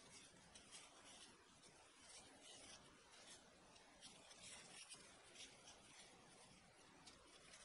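Faint, irregular rustling of disposable plastic gloves rubbing together as hands wrap and roll snow-skin dough around a filling ball.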